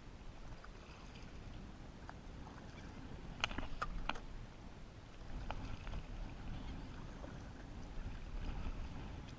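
Kayak paddling: the paddle blades dipping and pulling through the water over a steady low rumble. There are a few sharp clicks about three and a half to four seconds in and two more a little later.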